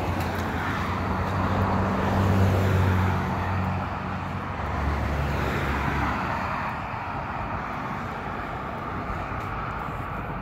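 Road traffic passing on a busy street. A motor vehicle's low engine hum is loudest in the first few seconds and fades after about six seconds, leaving a steady hiss of tyres and traffic.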